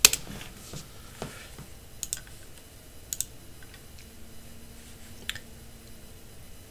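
Computer keyboard: a sharp key strike as the typed address is entered, the loudest sound, followed by a handful of fainter, isolated clicks spread over the next few seconds.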